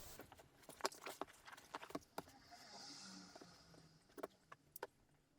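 Faint handling noises: scattered light taps and clicks of small objects being moved on a work surface, with a brief soft scratching hiss a little before the middle.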